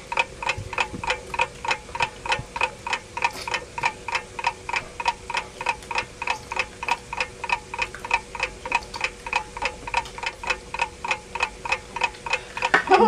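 A countdown timer ticking steadily, about four ticks a second, timing a five-minute eating challenge.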